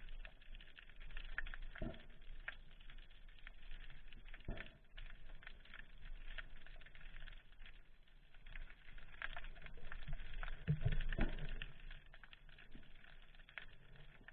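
Underwater sound picked up through a camera housing: a steady crackle of fine clicks, with a few dull knocks and a louder run of thumps about eleven seconds in.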